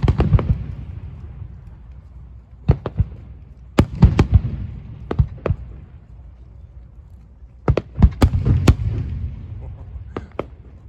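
Aerial fireworks shells bursting in clusters of sharp bangs, each followed by a low rumbling echo. Bursts come at the very start, around three to four seconds in, again around five seconds, a heavier cluster around eight seconds, and a couple of smaller pops near the end.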